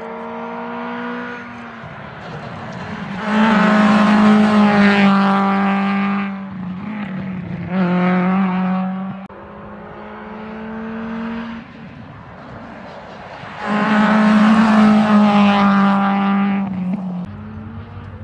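Rally car engine revving hard at full throttle in several loud bursts, loudest around four and fifteen seconds in. It drops back between bursts as the driver lifts and shifts on the stage road.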